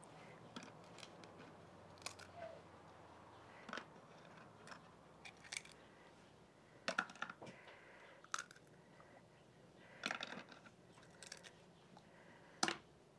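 Scattered light clicks and knocks of a utensil and bowl being handled as egg yolks are added to beaten egg whites for a frying batter, the sharpest knock near the end.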